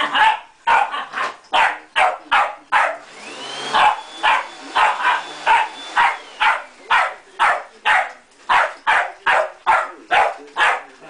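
Terrier barking rapidly and without a break at an upright vacuum cleaner, about two to three sharp barks a second. The vacuum cleaner's motor runs steadily underneath.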